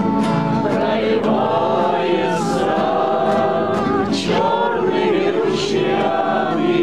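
A group of men singing a song together in unison, with vibrato, accompanied by strummed acoustic guitars.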